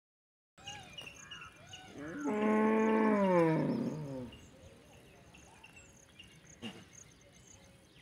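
A cow mooing once, a long call starting about two seconds in that holds level and then drops in pitch as it fades. Faint chirping calls in the background.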